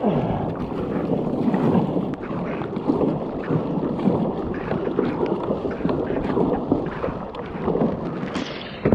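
Paddle strokes splashing and water washing against the hull of a sit-on-top fishing kayak paddling through choppy sea, with wind buffeting the microphone.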